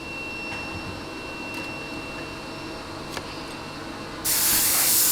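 Steady workshop hum with a faint high whine, then, about four seconds in, a loud burst of compressed air hissing from a spray nozzle for about a second and a half, starting and stopping abruptly.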